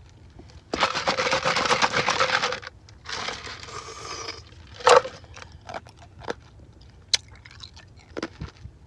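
Ice crunched between the teeth: a loud run of dense crunching about a second in, then a softer run of chewing, a single sharp crack near the middle, and scattered small clicks after.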